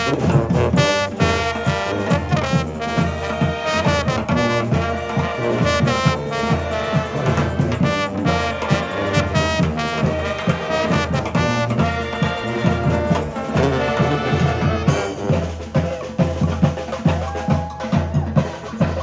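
Street brass band playing live, horns over a steady drum beat. About fifteen seconds in the horns thin out and the drums carry on.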